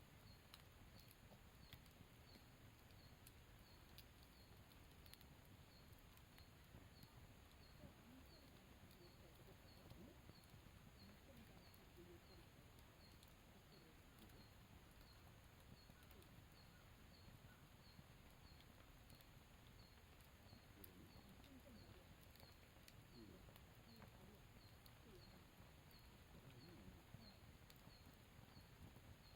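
Faint campfire crackling with scattered small pops, under a soft high chirp that repeats evenly about twice a second.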